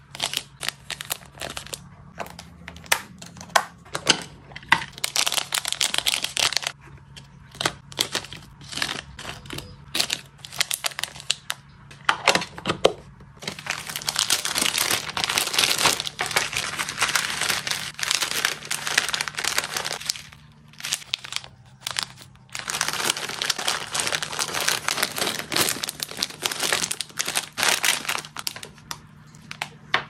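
Thin clear plastic bags crinkling in the hands: scattered sharp crackles at first, then two long stretches of dense, continuous crinkling in the second half.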